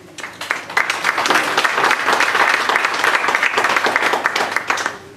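Audience applause, building up over the first second and stopping near the end.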